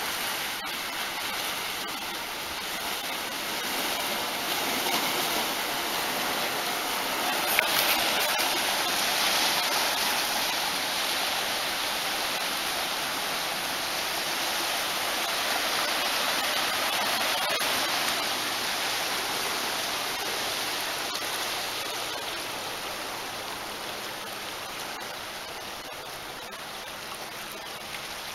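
Sea water rushing steadily over the shore and reef flat as the tsunami surge moves the lagoon. It swells to its loudest about eight to ten seconds in, then slowly fades.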